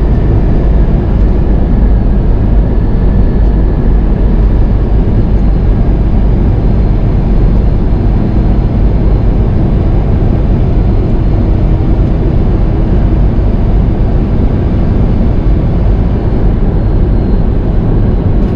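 Steady drone inside a Freightliner semi-truck's cab at highway speed: engine and road noise, deep and unbroken.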